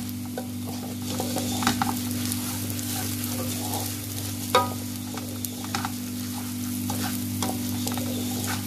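Wooden spatula stirring basmati rice and peas frying in oil in a steel pot: a steady sizzle and rustle of grains, with scattered scrapes and taps of the spatula on the metal, the loudest tap about four and a half seconds in. A steady low hum runs underneath.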